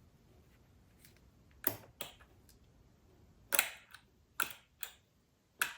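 A starter motor power cable tapped against a battery terminal about six times, each contact a sharp snap of a spark, with no sound of the starter motor turning: the starter does not run on direct battery power, which points to a faulty starter motor or a weak battery.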